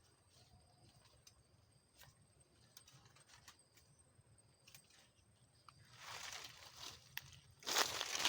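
Cut galangal stalks and leaves being handled and tied with string: faint scattered ticks, then from about six seconds in a rustling and crinkling that grows louder near the end.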